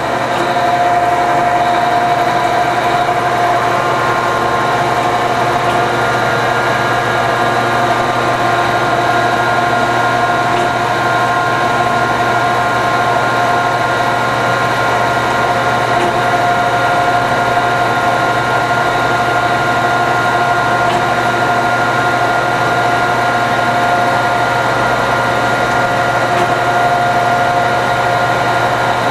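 Landis 3R hydraulic cylindrical grinder running steadily through the feed stage of a plunge-grinding cycle: its 30-inch grinding wheel, wheel motor and hydraulics give a constant hum with several steady whining tones.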